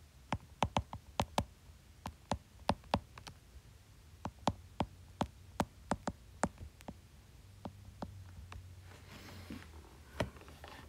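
Stylus tip tapping on a tablet's glass screen while handwriting: about twenty sharp, irregular ticks in the first seven seconds, a faint scratchy rub around nine seconds, and one more tap near the end.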